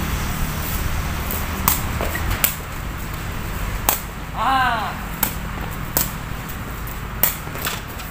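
A sepak takraw ball being kicked back and forth in a rally: about seven sharp knocks of foot on the hollow woven ball, spaced unevenly, with a brief shout about four and a half seconds in. A low steady hum of traffic runs underneath.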